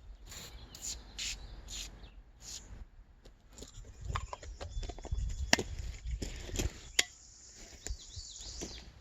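Hands at work cleaning a bicycle: a run of about five short, hissing strokes, then a low rumble with knocks and two sharp clicks as parts are handled.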